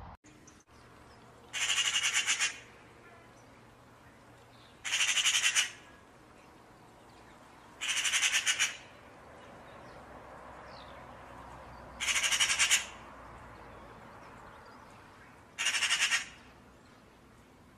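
A bird calling five times, each call about a second long and made of a fast rattle of notes, spaced three to four seconds apart.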